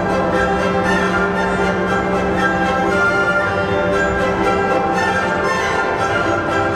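Orchestral music with strings over a steady held low note.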